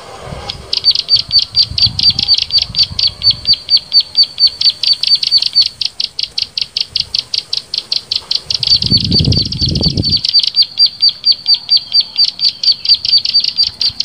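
A high bird call repeated rapidly and evenly, about seven short notes a second without a break, with a brief low rumble about nine seconds in.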